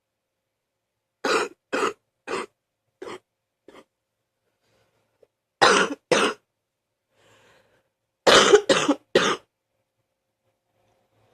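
A sick person coughing wet, chesty coughs, trying to bring up mucus. The coughs come in three bouts: five that grow fainter, then two, then four in quick succession.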